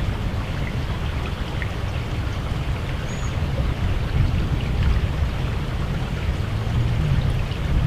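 Wind rumbling on the camera microphone, with a steady hiss over it.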